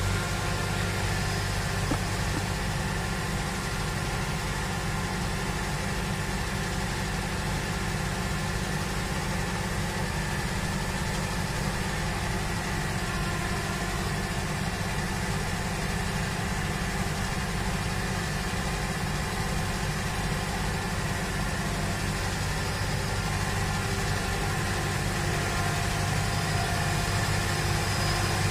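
Claas Lexion combine harvester running steadily while harvesting maize, mixed with the engine of the vehicle hauling the grain trailer alongside; an even, unbroken machinery drone with one brief knock about two seconds in.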